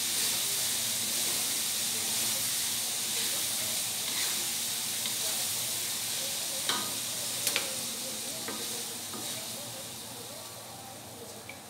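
Salted squid sambal sizzling in a nonstick wok while a wooden spatula stirs it, cooking down until its liquid reduces. There are a few sharp knocks of the spatula against the pan a little past the middle, and the sizzle fades toward the end.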